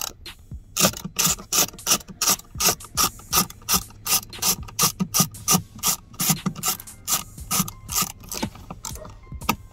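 Ratchet wrench clicking in quick, even strokes, about three a second, as a socket on an extension turns a bolt on a metal dashboard bracket; the clicking stops near the end.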